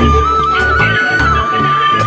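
Loud music played over loudspeakers: a high, held, flute-like melody line that steps up and back down over a heavy repeating bass beat.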